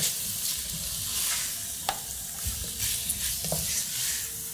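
Diced chicken, onion and garlic sizzling in hot oil in a nonstick pot, stirred with a wooden spoon that scrapes and taps against the pan, with a couple of sharper clicks midway.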